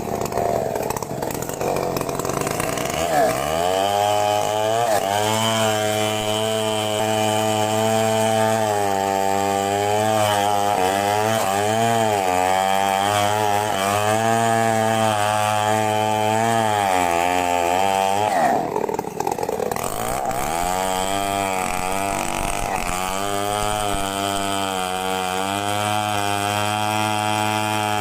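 Chainsaw engine running hard, its pitch repeatedly sagging and rising again as it cuts. About two-thirds of the way through it drops off briefly, then picks up and runs on.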